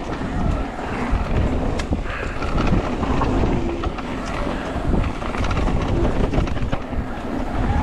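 Wind buffeting the microphone as a mountain bike rolls down a dirt trail, with a steady rumble from the tyres and scattered clicks and rattles from the bike over rough ground.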